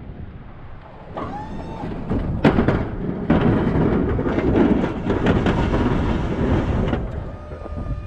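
Plow truck driving, with a steady low rumble and a brief rising-then-falling whine just after a second in. About two and a half seconds in there is a sharp knock, followed by about four seconds of louder, dense rushing noise that eases near the end.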